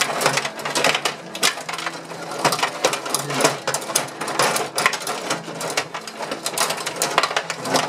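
Gretzky rod table hockey game in fast play: a continuous, irregular clatter of metal control rods rattling and spinning in their slots, plastic players clacking against the puck and one another, and the puck knocking around the rink.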